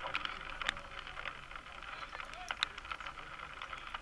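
Outdoor ambience of a football match: faint distant shouts from players over a steady hiss, with a few short sharp clicks.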